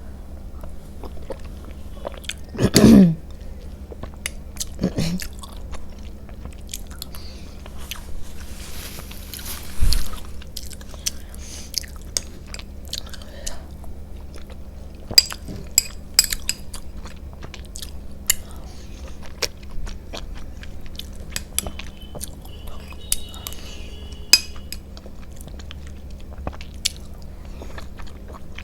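Close-miked chewing and mouth sounds of someone eating soft food, with scattered small clicks and a short vocal sound about three seconds in.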